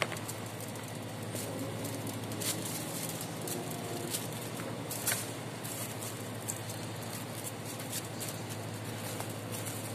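Steady low hum of room ambience, with light clicks and taps scattered irregularly through it.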